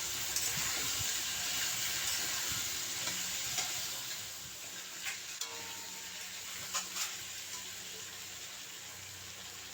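Potatoes frying in hot oil in a kadai: a steady sizzle that slowly fades, with a few scattered clicks of a spatula stirring against the pan.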